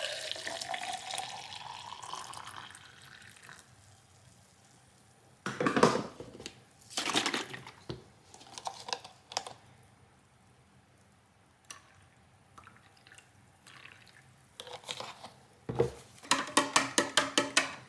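Oat creamer poured into a cup of coffee, the pitch of the pour rising as the cup fills over about three seconds. A few brief knocks and handling sounds follow, then a quick run of sharp clicks near the end.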